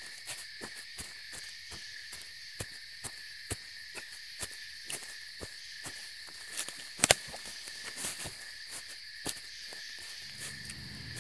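Night ambience of crickets and insects chirping in a steady high drone, with scattered sharp clicks and snaps, the loudest about seven seconds in. A low rumble comes in near the end.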